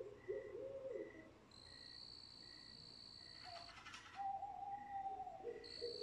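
Night-time nature ambience: low hooting calls near the start and again near the end, over high, steady insect chirping.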